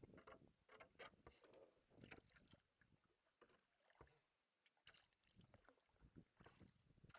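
Sea kayak paddling in calm water: faint, irregular water splashes and drips from the paddle and around the hull.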